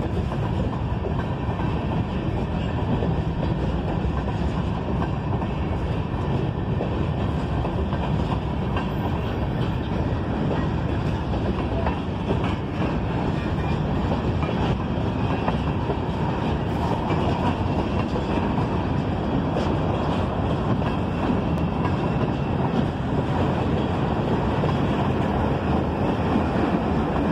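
Freight train cars rolling past on the rails, a steady loud rumble of wheels on track.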